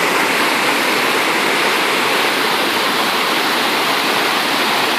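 Steady, loud rushing of water, even and unbroken throughout.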